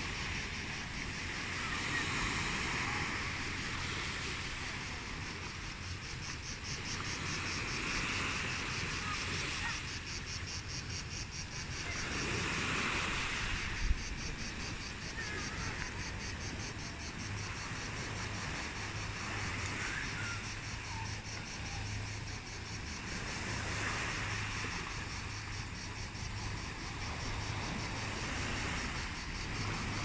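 Sea waves washing against shore rocks, swelling and easing every few seconds, with insects chirping in a fast even pulse and a low wind rumble. A single brief knock about halfway through.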